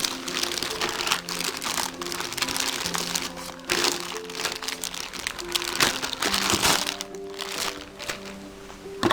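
Background music with a simple melody, over a near-constant crinkling and crackling of plastic packaging being handled.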